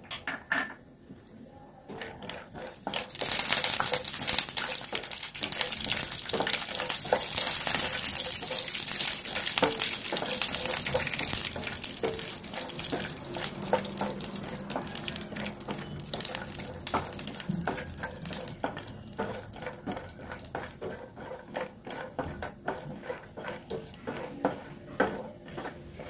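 Whole almonds sizzling in hot ghee in a nonstick frying pan, a steady hiss that sets in a few seconds in and eases off in the second half. A wooden spatula stirs them, with light clicks of almonds and spatula against the pan.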